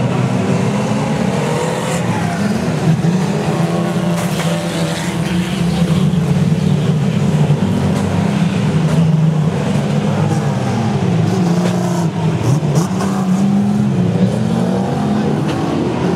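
A pack of speedway stockcars on a dirt oval, many engines running together and revving up and down as the rolling start gets away and the field races into the turn. It grows louder about six seconds in.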